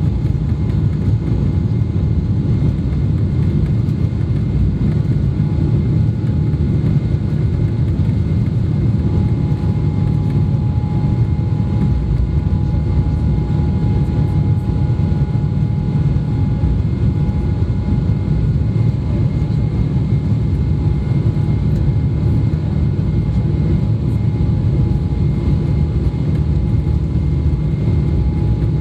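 Boeing 777-300ER's GE90 turbofan engines running at high thrust, heard from inside the passenger cabin: a steady low rumble with several thin steady whining tones above it.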